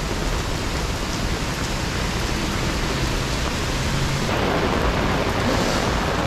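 Heavy downpour: a steady hiss of rain falling.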